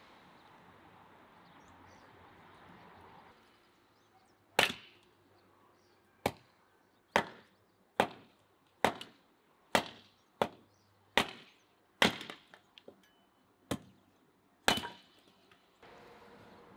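Hatchet chopping a piece of wood, about a dozen sharp chops roughly one a second that start a few seconds in.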